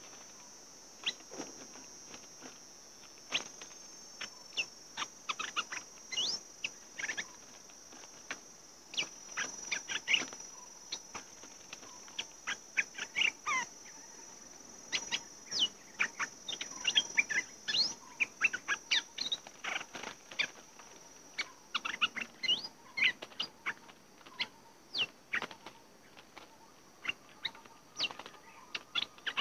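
Bulbuls calling in short, sharp chirps with quick rising and falling notes, many in a row and coming in clusters, over a steady high insect whine.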